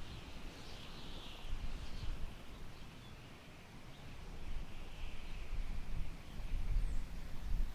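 Summer wind blowing through tall grass, rising and falling in gusts, with a low rumble of wind on the microphone under a soft, higher rustle.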